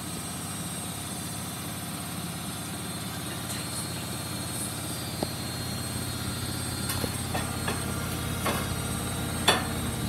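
Bendix BIW 103W front-loading washing machine spinning its drum on a spin cycle: a steady motor-and-drum hum that builds a little, with a few short knocks in the second half, the loudest near the end.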